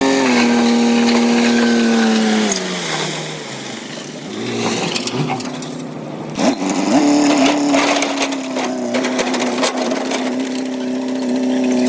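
Bulldozer diesel engine running hard, its pitch sagging about two and a half seconds in as it lugs under load. Crunching and cracking of pushed material follows, then the engine picks back up around six to seven seconds in and runs steadily.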